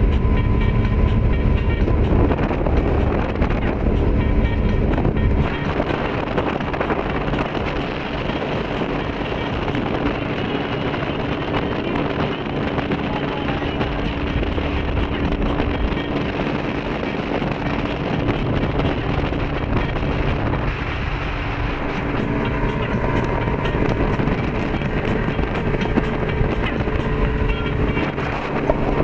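A 22-foot Hydra-Sports boat's engine droning steadily at running speed, under a steady rush of wind and water past the hull.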